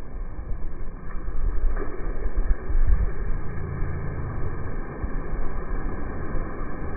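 Wind buffeting the microphone: an uneven low rumble that swells and fades in gusts.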